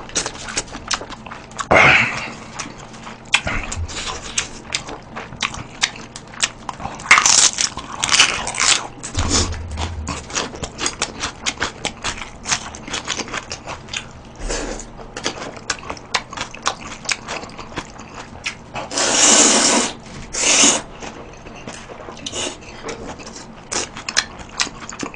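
Close-miked eating of noodles: a steady run of wet chewing smacks and mouth clicks, with louder slurps of jjamppong noodles about seven seconds in and again around nineteen to twenty-one seconds.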